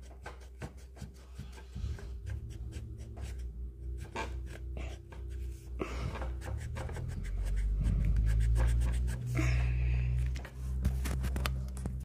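Pencil eraser rubbing and scratching on paper in short strokes, played back slowed down. Under it runs a low background rumble that grows louder in the second half.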